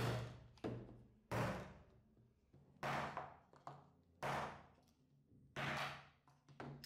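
Restored butcher cleaver-axe chopping into wooden blocks on a workbench: five heavy chops about a second and a half apart, each fading quickly, with lighter knocks between them.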